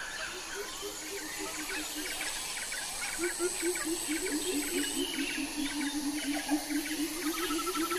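Tropical forest ambience: a low animal call repeated rapidly, about four notes a second, stopping briefly about two seconds in and starting again a second later. Scattered bird chirps and a steady high insect hiss run beneath it.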